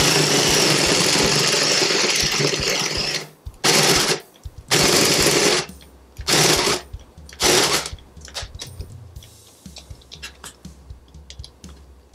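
Cordless drill boring a 32 mm spade bit through a wooden disc on a nearly flat battery. It drills continuously for about three seconds, then runs in four short bursts, then runs quietly and slowly with scattered ticks near the end.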